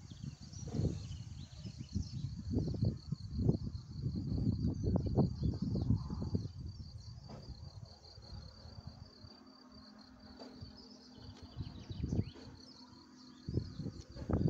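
Insects chirring in a steady, fast-pulsing trill, under gusts of wind buffeting the microphone. The gusts ease about two-thirds of the way through and pick up again near the end.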